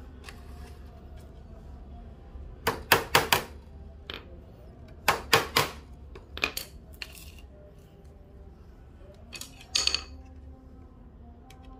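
Small metal screws and a steel pull handle clinking and tapping as they are handled and set in place: sharp metallic clicks in quick clusters of three or four, a couple of seconds apart, with two last clinks near the end.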